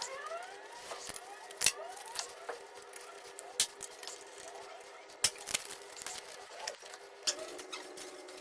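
Electric hub motor running, its whine rising in pitch over the first couple of seconds over a steady hum, with irregular clicks and knocks: the running noise that, as a rule, points to a burnt stator winding.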